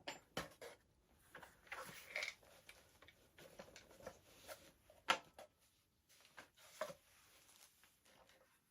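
Small plastic parts being handled and fitted, a run of faint irregular clicks and rubs with one sharper click about five seconds in.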